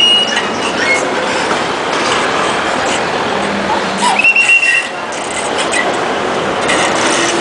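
Chao Phraya express boat running, a loud steady rush of engine, churning river water and wind on the open deck, with short high squeals at the start and about four seconds in.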